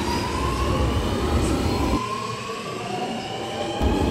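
Double-deck electric suburban train running past with a rising electric motor whine as it picks up speed, over rail rumble that drops away for a couple of seconds in the middle.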